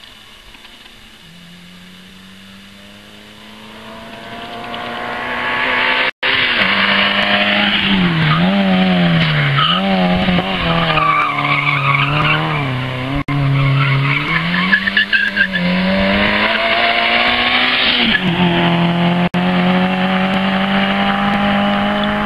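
Rally car engine approaching and growing loud, then revving up and down repeatedly with tyres squealing as the car is thrown through a tight tyre-marked section. After a drop in pitch it accelerates away with a steadily rising note.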